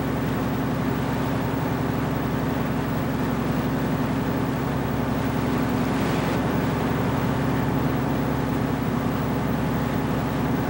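Fishing boat's diesel engine running steadily under way, a constant even drone. About six seconds in, a brief faint hiss of water poured from a jerrycan into a bucket.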